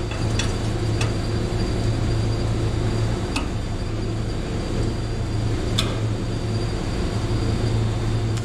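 Steady low hum in a workshop, with a few sharp metal clicks as a steel floor-frame tube and clamps are set in place on a car body.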